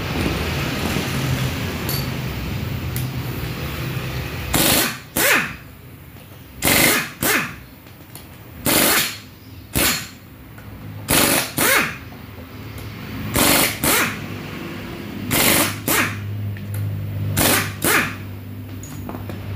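Pneumatic impact wrench hammering in short bursts, mostly in pairs about every two seconds, starting about four and a half seconds in: loosening the clutch pressure-plate bolts on the flywheel to get the worn clutch disc off.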